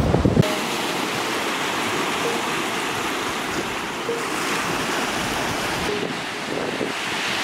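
Small waves washing onto a shore, a steady hiss of surf. It opens with a brief loud rush of wind on the microphone.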